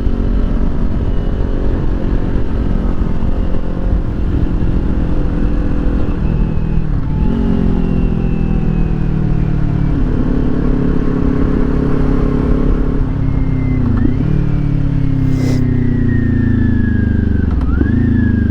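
Kawasaki Ninja 400's parallel-twin engine on its stock exhaust, running under way. Its pitch falls steadily, with a brief dip and a jump back up about 7, 14 and 18 seconds in as gears change.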